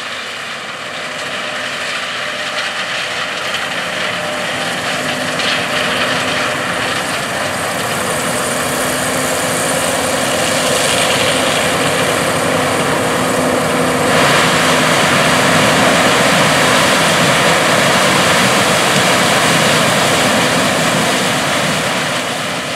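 John Deere S780 combine harvester running as it harvests corn: a steady engine and threshing drone with a few held tones underneath, growing gradually louder over the first half and then holding steady.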